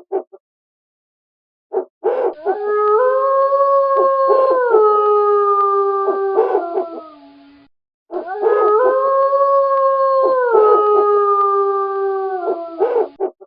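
Wolves howling in chorus, with short yips mixed in: two long howls several seconds each, each held steady and then stepping down in pitch, with a brief gap between them.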